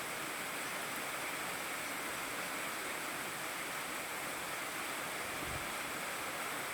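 Steady rain falling, an even hiss with no separate drops standing out. A faint low rumble comes in near the end.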